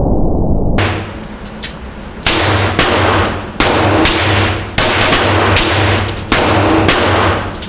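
Browning Buck Mark Camper .22 LR pistol firing CCI Stinger rounds at a steady pace: about five loud shots roughly a second and a half apart. Each crack is followed by about a second of reverberation, with fainter cracks in between.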